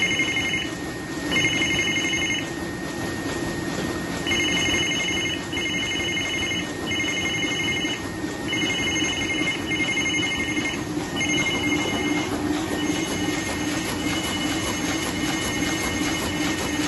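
MAN Roland 704 sheetfed offset press running steadily as its speed is raised from about 7,900 to 8,800 sheets an hour. Over the machine noise an electronic beeper sounds in roughly one-second beeps with short gaps, then holds as a fainter steady tone for the last few seconds.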